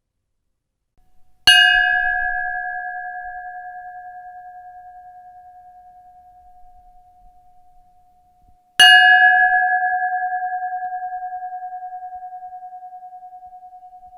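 Ship's bell rung twice, about a second and a half in and again about seven seconds later; each strike gives one clear ringing note that dies away slowly with a slight wavering. Picked up by a contact microphone on the bell, so the tone is close and dry.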